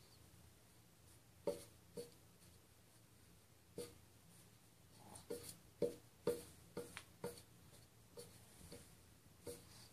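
Baby eating finger food: a string of faint, short mouth smacks and clicks, irregular and coming more often in the middle.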